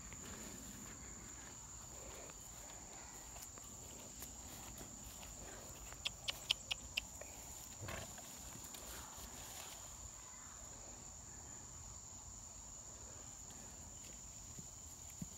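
Faint outdoor ambience with a steady high-pitched insect drone. About six seconds in, five quick sharp clicks, then a short, deeper animal-like sound a second later.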